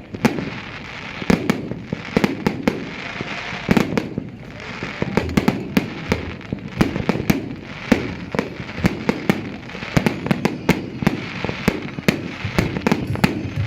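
Fireworks going off: a dense, irregular string of sharp bangs and cracks, several a second, over continuous crackling and rumbling from the display.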